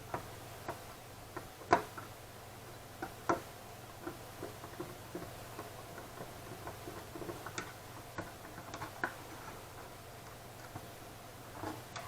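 Irregular small clicks and taps of hand tools and small parts being handled while working on a graphics card, two sharper knocks in the first few seconds, over a faint steady hum.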